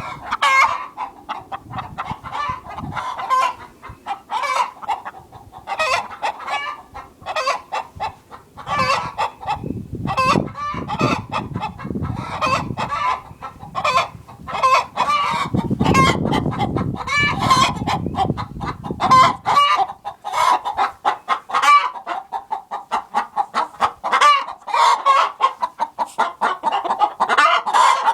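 A flock of hens clucking and cackling, many short calls repeated in quick, overlapping runs: the egg-song cackling of laying hens. A low rumble runs under the calls from about ten to nineteen seconds in.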